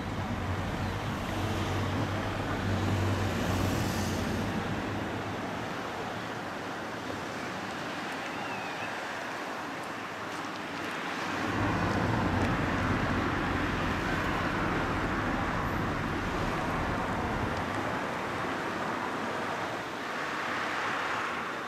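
Steam-hauled train running past: a steady low rumble and rushing noise that swells again about halfway through.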